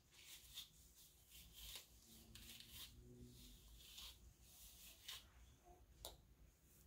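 Faint brushing: a Denman brush raked through thick type 4 curly hair coated in styling cream, making soft scratchy swishes at irregular intervals as it smooths out the ends.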